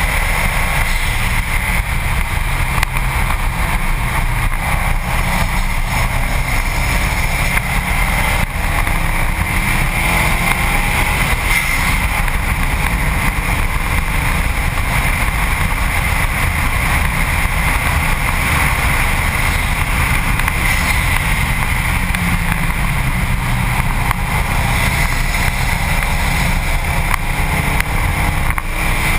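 Steady rush of wind and road noise on a camera mounted low on a Subaru WRX STi's front bumper at track speed, with the car's engine faintly rising and falling in pitch underneath as it accelerates and lifts.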